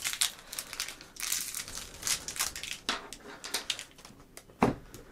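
Plastic packaging crinkling as it is handled and opened, in irregular crackles with a couple of sharper clicks.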